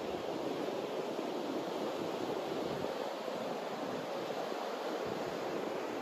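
Ocean surf breaking and washing up a sandy beach, a steady rush of waves with no single crash standing out.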